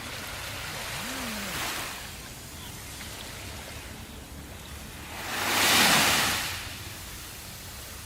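Sea waves washing onto a shore: a steady hiss of surf with a small swell about a second and a half in and a louder wave breaking and washing in about six seconds in.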